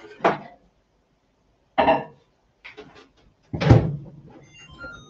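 Clunks of a bowl of white sauce going back into a microwave, the loudest a thud of the microwave door shutting about three and a half seconds in, followed by a few short electronic beeps as the one-minute timer is set.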